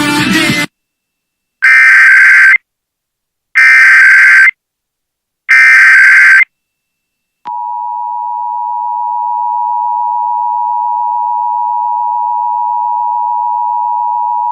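Emergency Alert System test tones: three loud one-second bursts of the SAME digital header, a warbling data screech, about two seconds apart. After a short gap, the steady two-tone EAS attention signal begins about seven and a half seconds in and holds. This is the start of a Required Weekly Test of the Emergency Alert System.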